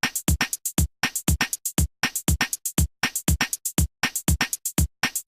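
Music: a drum-machine beat of sharp, deep-thudding hits in a pattern that repeats about once a second.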